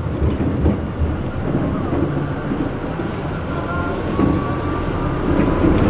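Tram running along its track, heard from inside the car: a steady low rumble of wheels on rails and running gear, with a faint thin whine coming and going in the middle.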